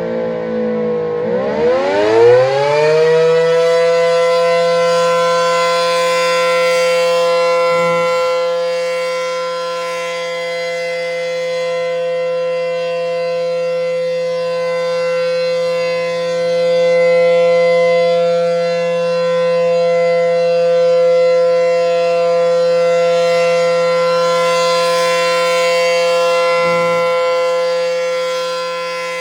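ACA P-15 outdoor warning siren sounding a steady alert tone. In the first few seconds its pitch dips and then climbs back up, after which it holds one steady note whose loudness slowly swells and fades.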